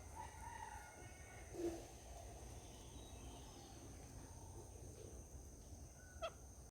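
Faint outdoor ambience with a few short, distant bird calls, one a little louder about a second and a half in, over a steady high-pitched whine and low rumble.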